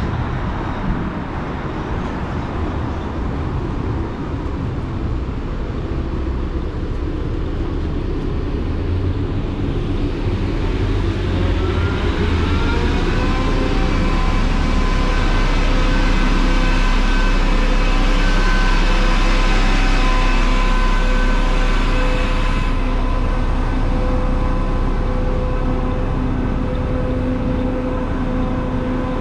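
A concrete mixer truck running at the kerb, its engine rumbling with a steady whine of several pitches that comes in about eleven seconds in, over street traffic. The noise swells to its loudest past the middle, then eases.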